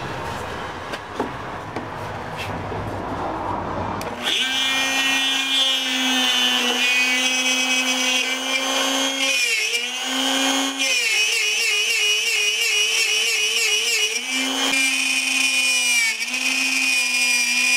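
Compact palm router routing slots through stacked Kydex sheets in a wooden fixture. About four seconds in, a steady high motor whine sets in. Its pitch dips briefly several times as the bit bites and loads, and warbles for a couple of seconds in the middle as the bit chatters in the cut. Before that there is a rougher, unpitched cutting noise.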